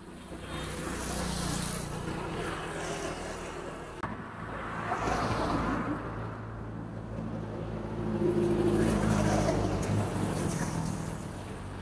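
Motor vehicles passing by on a road, rising and fading three times over a steady low engine hum.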